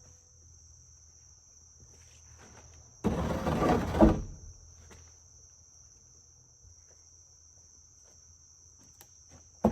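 Insects drone steadily in a high band throughout. About three seconds in, a rough wooden board scrapes for about a second and ends in a thud as it is set down; another scrape begins right at the end.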